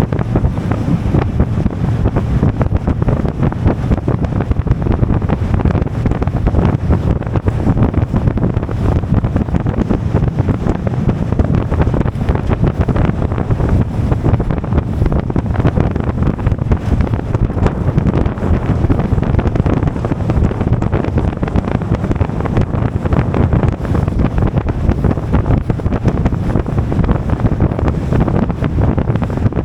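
Steady wind rushing over the microphone aboard a moving boat, mixed with the boat's running noise and water.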